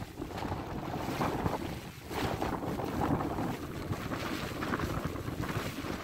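Strong, gusty squall wind of a snowstorm blowing against the microphone: a steady rush that swells and eases, dropping for a moment about two seconds in and then picking up again.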